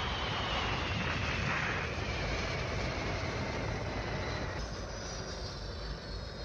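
Cartoon sound effect of a spaceship engine as it lands: a loud rushing noise over a low rumble, with a whine that slowly falls in pitch. It eases off gradually, and a fresh set of falling whines comes in a little past the middle.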